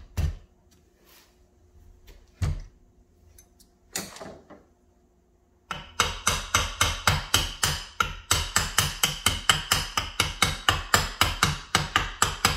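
Hammer tapping a pool booster pump motor's tail housing down over its shaft bearing. A few separate knocks come first, then from about six seconds in a quick, even run of light taps, about four or five a second.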